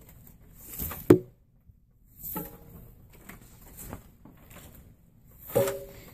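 Braiding cord strands rustling and swishing as they are pulled and flipped over by hand: three short swishes, the last the loudest, with a sharp click about a second in.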